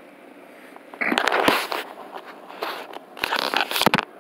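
Handling noise on the recording device's microphone: rustling and scraping with sharp clicks, in bursts starting about a second in, with a few hard knocks near the end.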